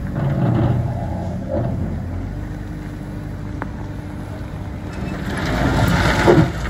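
JCB wheel loader's diesel engine running, with a louder rushing, scraping noise building near the end as its bucket shoves a load of gravel and rock along the road.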